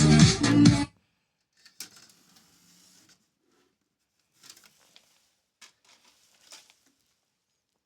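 Electronic dance music playing through the car radio cuts off abruptly about a second in. A few faint, scattered clicks and taps follow.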